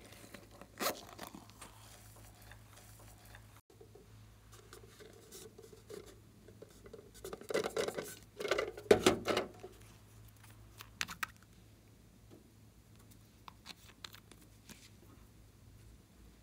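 Hands rubbing and tapping plastic toys: scattered scratches and clicks, with a louder run of scraping about eight to nine seconds in, over a faint low hum.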